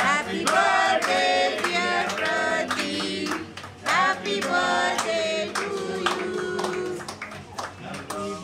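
Singing of a birthday song with a group clapping along in time, about two claps a second.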